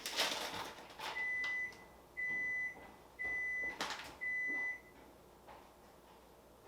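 An appliance's electronic alert beeping four times, about once a second, each beep a steady high tone of about half a second. Light handling rustle just before the beeps.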